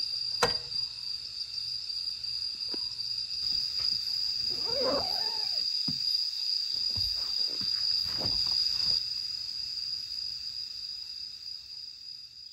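Autumn crickets chirping in a steady, high, even trill. A sharp click comes about half a second in, with scattered knocking and rustling around the middle. The sound fades near the end.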